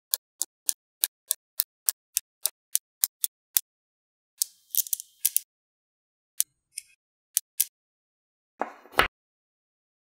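Small magnetic balls snapping together one at a time in sharp clicks, about three or four a second. Then comes a quick cluster of clicks and a few scattered ones, and near the end a single louder, fuller clack.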